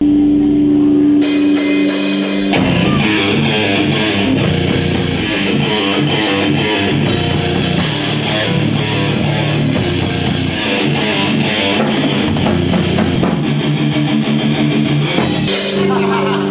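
Loud rock music played by electric guitar and drum kit. It opens on a held chord, the full band with drums comes in about two and a half seconds in, and it settles back onto a held chord near the end.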